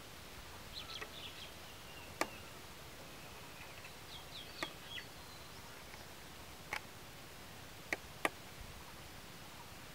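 Faint high-pitched bird chirps in two short bouts, with five sharp clicks spread through, the loudest sounds, over a quiet background.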